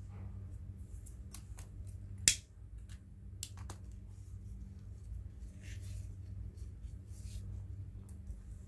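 Satin ribbon handled and folded into loops: soft rustles and small clicks, with one sharp snap a little over two seconds in. A steady low hum runs underneath.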